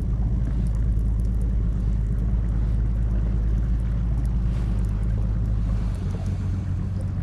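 Boat motor running steadily as a low hum, with wind buffeting the microphone; the hum shifts in pitch about six seconds in.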